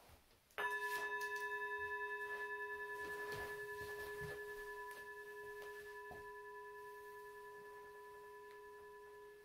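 A singing bowl struck once, ringing out with several clear overtones and a slow, wavering decay for about nine seconds before it stops abruptly.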